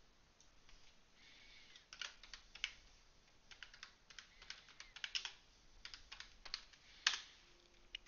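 Typing on a computer keyboard: a run of irregular keystroke clicks, with a louder click about seven seconds in.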